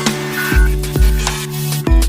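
Background music with a heavy bass beat, a kick about every half second under sustained synth notes.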